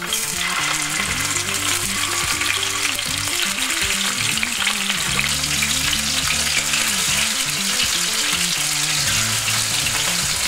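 Pieces of sea bass fillet sizzling in hot sunflower oil in a nonstick frying pan over high heat, a steady crackling hiss as they are laid in and fry.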